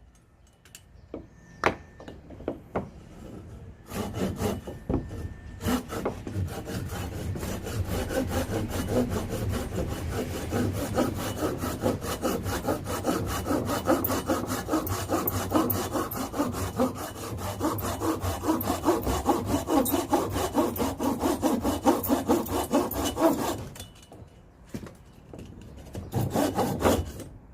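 Hand saw cutting through dry firewood in quick, steady back-and-forth strokes, after a few scattered knocks. The sawing stops about 23 seconds in, with a brief last burst of strokes near the end.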